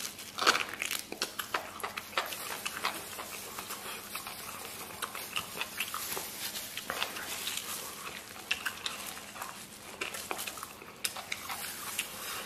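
A person chewing food with the mouth open: a run of irregular wet smacks and clicks, loudest about half a second in.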